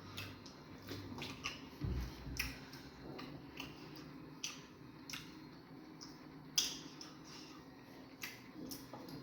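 Wet eating sounds of chewing fufu with egusi soup: irregular lip smacks and squelchy clicks, the sharpest one a little past halfway.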